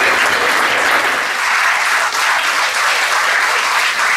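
Audience applauding steadily, dense clapping.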